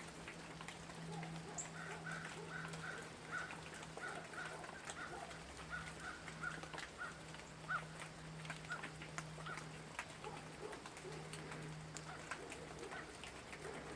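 A bird calling a quick run of short, clear notes, about three or four a second, that slows and fades out about halfway through, over a steady low hum.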